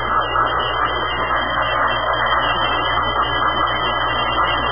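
Steady, unbroken noisy wash that sounds dull, with nothing in the high end.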